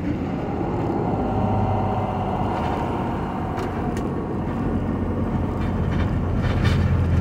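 Car driving on a dirt road, heard from inside the cabin: a steady engine hum with tyre and road noise, and a few brief clicks or knocks midway and near the end.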